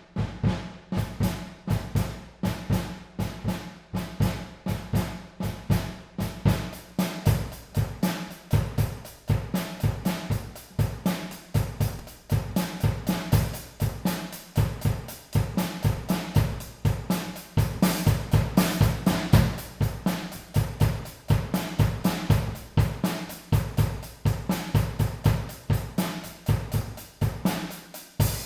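A drum kit played by a beginner: snare, bass drum and cymbal strikes at a few a second in an uneven beat, with hall reverb ringing after each hit.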